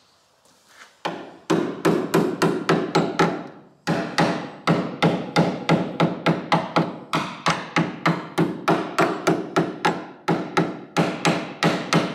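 Quick, steady hand-hammer blows on the sheet steel of a car body's door hinge pillar, each a sharp metallic strike with a short ring, about four a second. The hammering starts about a second in and breaks off briefly twice, at about four and ten seconds.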